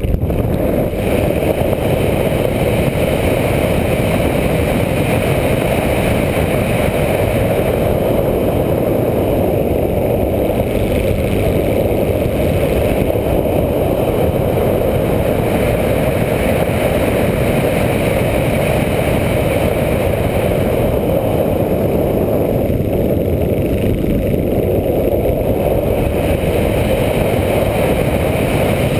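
Onboard sound of a radio-controlled model airplane in flight: a steady, loud rush of wind over the microphone mixed with the running motor and propeller.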